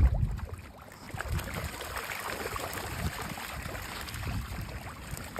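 Water splashing and trickling, with scattered small splashes and a heavy low thump right at the start.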